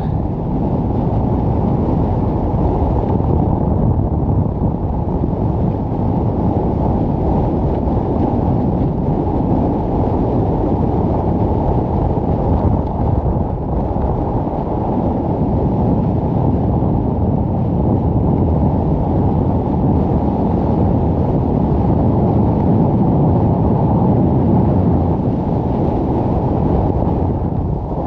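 Strong wind roaring over the microphone on an exposed snowy fellside, a steady low rumble with no let-up.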